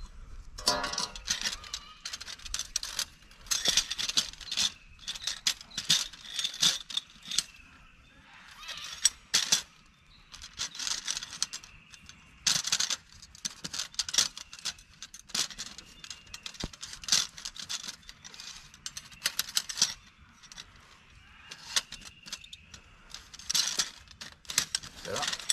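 Tubes and joints of a folding metal camp frame clinking, rattling and clicking as they are handled and fitted together, in irregular bursts of sharp knocks with short pauses between them.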